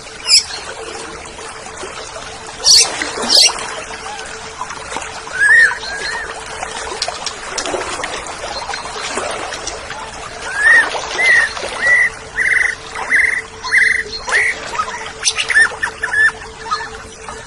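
Oriental magpie-robin (kacer) singing: a few sharp high calls, then from about ten seconds in a quick run of short, repeated whistled notes.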